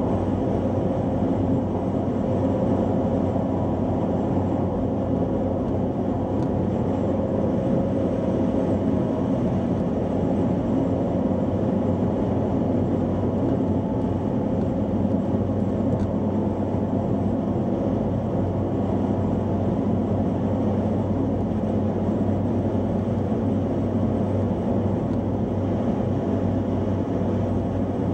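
Steady interior noise of a car cruising at motorway speed: a constant low engine and road drone with tyre rumble, heard from inside the cabin.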